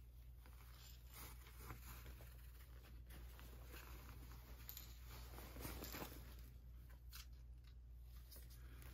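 Faint handling noise: light rustles and a few soft taps, a little stronger about five to six seconds in, over a steady low hum of room tone.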